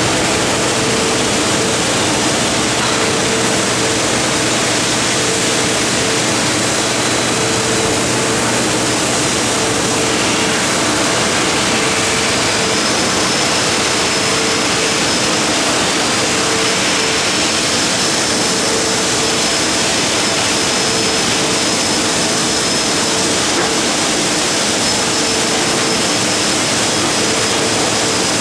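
MIG welding arc of a CNC gantry welding machine, a steady, unbroken hiss with a faint hum under it.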